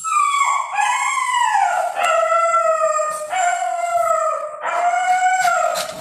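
A frightened puppy howling in four long, drawn-out wails, one straight after another, the first sliding down in pitch.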